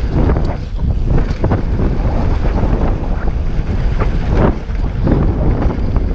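Wind rushing over the action camera's microphone as a Scott Voltage 720 mountain bike descends a dry dirt trail, with a steady low rumble from the tyres on the ground and irregular clatter and knocks as the bike hits bumps.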